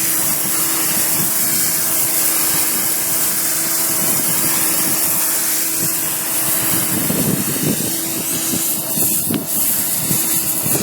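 A motor-driven machine running steadily, with a constant hum and a high hiss, and a brief surge of hiss near the end.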